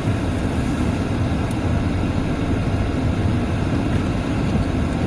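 Steady road and engine noise inside a moving car's cabin on snowy streets, with the heater fan blowing.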